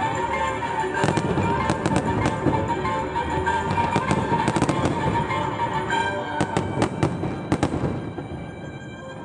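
Aerial fireworks display: a dense run of shell bursts and bangs with music playing under it. A few sharp single bangs stand out about two thirds of the way in, then the bursts thin out and the sound drops off near the end.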